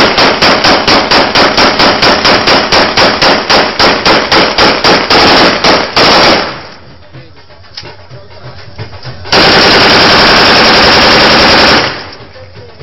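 Rapid gunfire, about five shots a second for some six seconds. After a short lull comes one unbroken burst of about two and a half seconds, loud enough to clip.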